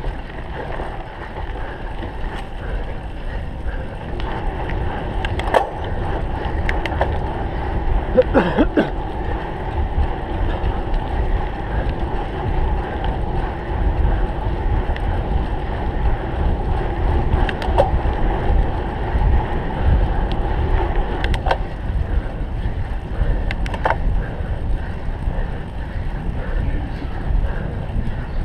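A cyclocross bike ridden hard over a rough race course, heard from on board. Wind rushes over the microphone along with a steady rumble of tyres, and there are a few sharp knocks as the bike jolts over bumps.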